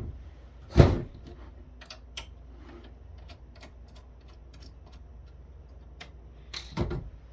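Hardware being handled during a teardown: a sharp knock about a second in, then scattered light clicks, and another couple of knocks near the end.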